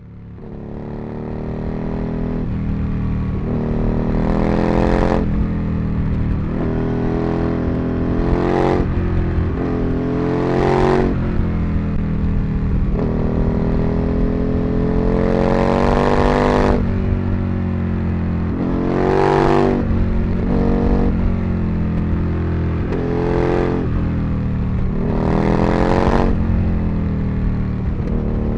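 Aprilia RSV Mille's V-twin engine revving hard again and again under acceleration, rising in pitch seven times with steadier running in between. The sound fades in at the start.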